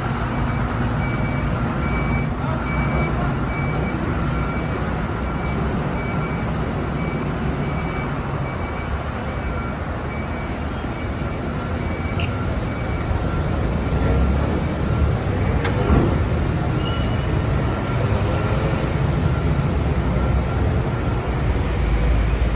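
Heavy truck hauling an aircraft fuselage on a multi-axle road trailer: a continuous low engine and rolling rumble that grows louder in the second half. A faint high repeating beep sounds over it for the first several seconds.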